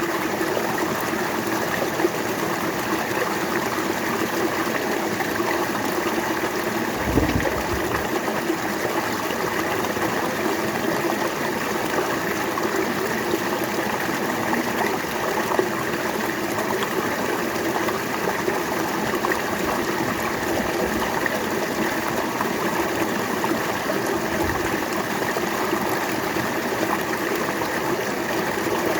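River water flowing steadily, with a brief low thump about seven seconds in.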